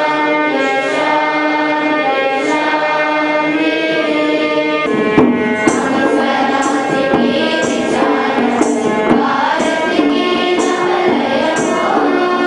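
School students singing a prayer song together in long held notes. About five seconds in, a girls' choir singing into a microphone takes over, with percussion struck about once a second.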